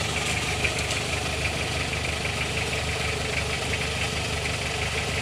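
Toyota Tamaraw FX engine idling steadily, with a fast, even ticking over the low hum.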